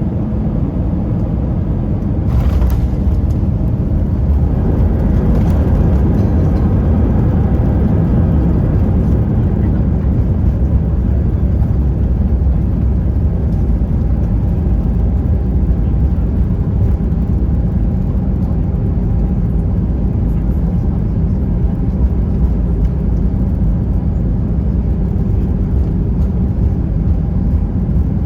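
Airbus A320 cabin noise: a steady low rumble of engines and airflow heard from inside the cabin, with a brief knock about two and a half seconds in.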